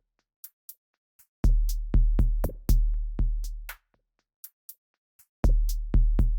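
Electronic drum-machine beat: deep bass kicks that ring on for a moment, over crisp hi-hat ticks. The kicks drop out for about a second and a half at the start and again midway, leaving only sparse ticks.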